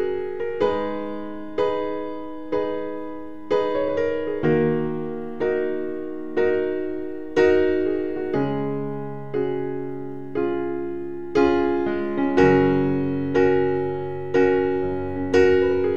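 Background piano music: gentle chords struck about once a second at an even pace, each ringing and fading before the next.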